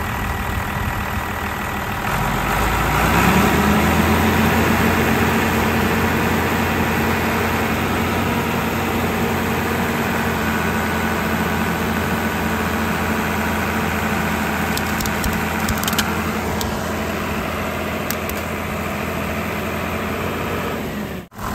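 John Deere tractor's diesel engine running, then throttled up about two and a half seconds in and held at higher revs under load as the driven wheel turns a tied-on log down into the mud to climb out of a stuck spot.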